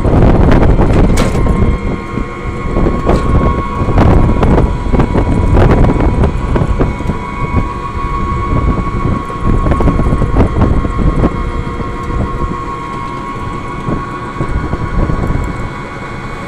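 Moving road vehicle heard from inside its open-sided cabin: a loud rumble of engine and road noise with wind buffeting the phone's microphone, a steady whine held through most of it, and scattered knocks and rattles.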